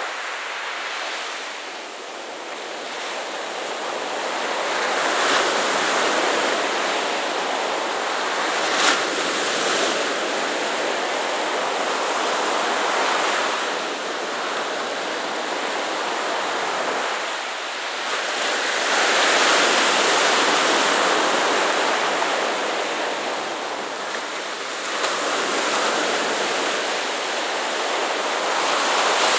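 Ocean surf breaking and washing up a sandy beach, the rush of water swelling and easing every several seconds as each wave comes in.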